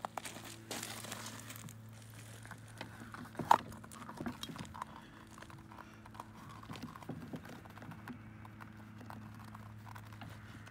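Crunching footsteps on gravel and small clicks and knocks from hands working at an outboard motor's cowl, the sharpest click about three and a half seconds in, over a steady low hum.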